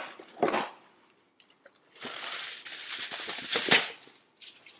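A sheet of aluminum foil being pulled off the roll and torn off: a crinkling rustle lasting about two seconds, with a louder rip near the end.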